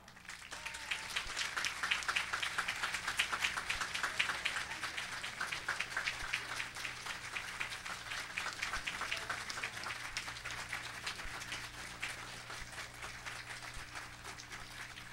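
Audience applauding: dense clapping swells within the first two seconds, holds, then slowly thins and dies away near the end.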